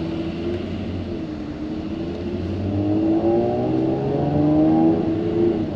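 2017 Jaguar F-Type's supercharged V6 engine accelerating. Its note dips about a second in, then climbs steadily in pitch and grows louder, and falls away suddenly near the end.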